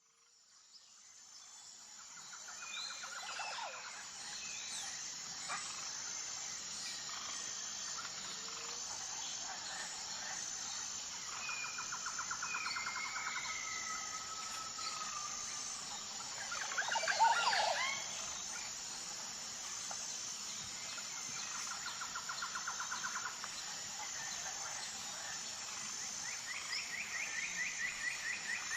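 Wild birds calling over a steady, high pulsing insect chorus. Short rapid trills come now and then, a louder cluster of sweeping calls comes a little past halfway, and a higher trill comes near the end. The sound fades in at the start.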